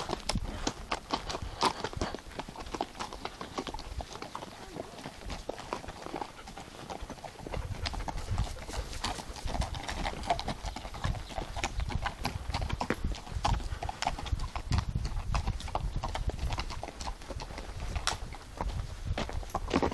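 Horse's hooves clopping in an uneven run of sharp knocks.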